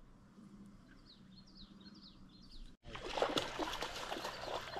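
Small birds chirping, a quick run of short falling chirps. About three seconds in, the sound cuts out for an instant and louder, crackling water splashing takes over.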